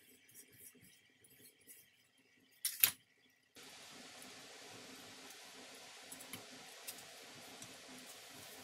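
A metal spoon clinking twice in quick succession about three seconds in, against faint handling of a crumbly flour mixture in a steel plate; a steady faint hiss follows.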